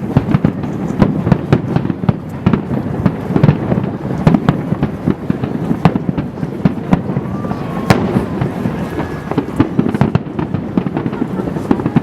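Fireworks display going off in a rapid, continuous barrage of bangs and booms with no pauses.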